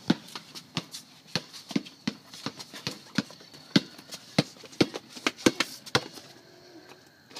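Basketball being dribbled on pavement, mixed with the slaps of running feet during one-on-one play: sharp irregular thumps several times a second that stop about six seconds in.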